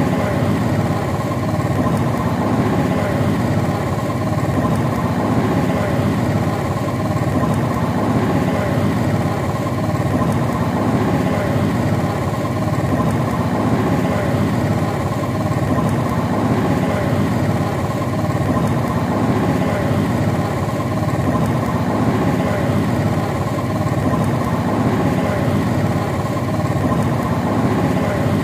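A motor vehicle's engine running steadily while it travels along, a constant hum with no changes in speed.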